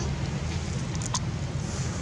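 Steady low outdoor background rumble, with a short faint click about a second in.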